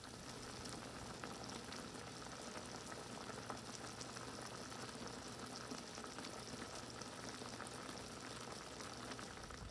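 Beef pot roast simmering in chicken stock in a Dutch oven: a low, steady bubbling and crackle of the braising liquid.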